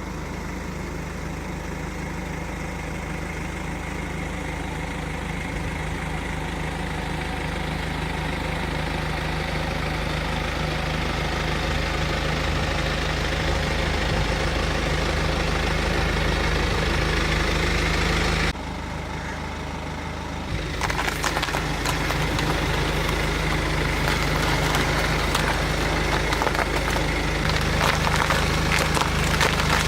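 Car engine running steadily and slowly getting louder. After a sudden break, dense crackling and cracking sets in over the engine, growing thicker: nuts and apples being crushed under the car's tyres.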